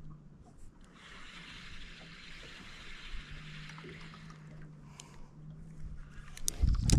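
Faint trickling and lapping water, with a low hum coming and going. Near the end a loud low buffeting hits the microphone.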